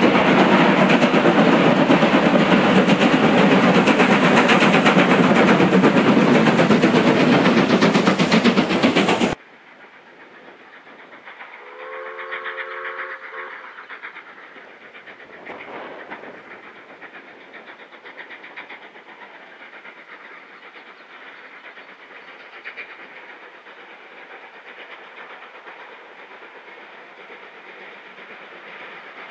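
Two steam locomotives double-heading a passenger train, working hard with loud, rapid exhaust beats. These stop abruptly about nine seconds in. After that a distant steam locomotive sounds its whistle once, briefly, and its exhaust carries on faintly as it approaches.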